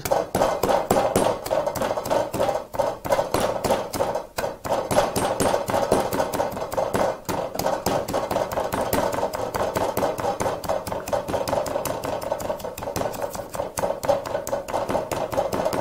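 Wooden pestle pounding garlic cloves and salt in a wooden mortar: rapid, steady knocking, several strokes a second, with no let-up.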